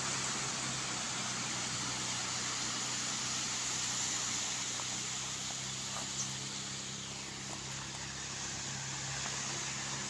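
Steady seaside ambience: an even hiss with a low steady hum underneath, and a faint click about six seconds in.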